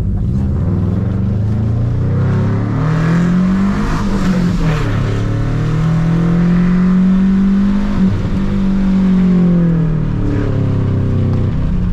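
Subaru Impreza 2.5 RS's flat-four engine accelerating hard and easing off several times through an autocross run, its pitch climbing, dropping and climbing again, with a brief knock about eight seconds in. A steady hiss of spray from the rain-soaked course runs beneath it.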